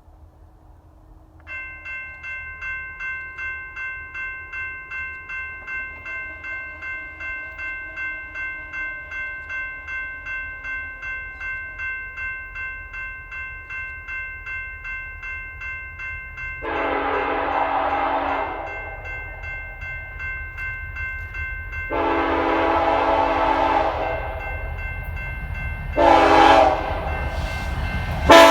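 A General Signals type 2 electronic crossing bell starts ringing about a second and a half in, pulsing about twice a second. Over it the BNSF coal train's locomotive horn sounds two long blasts and a short one, the grade-crossing warning pattern as the train nears the crossing.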